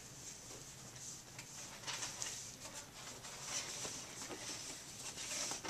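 Faint classroom background: a low murmur of distant children's voices and small rustles over a steady hiss, with no clear single event.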